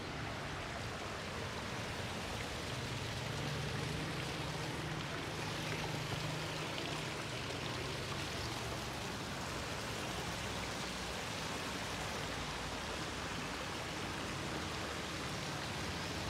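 Garden fountains and running water in ornamental pools, a steady splashing hiss.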